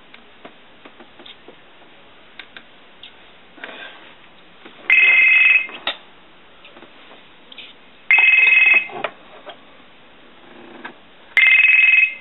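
Telephone ringing: three short electronic rings, each a steady pair of high tones, about three seconds apart.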